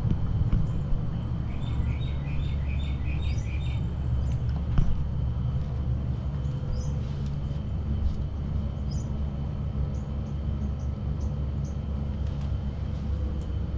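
Birds chirping in short, high calls, most in the first few seconds, over a steady low rumble.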